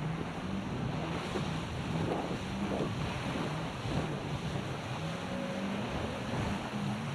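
Wind buffeting the microphone and water rushing past on a banana boat being towed at speed, with a motorboat engine droning underneath, its pitch wavering up and down.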